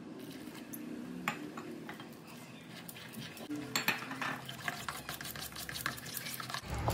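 Gram flour (besan) batter being stirred in a bowl, with faint scattered clicks of the utensil against the bowl as water is worked in to make a thick batter.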